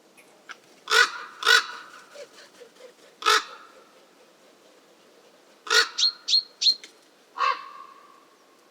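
Harsh, loud bird calls in short bursts: two close together about a second in, another a couple of seconds later, then a quick run of four and one last call near the end.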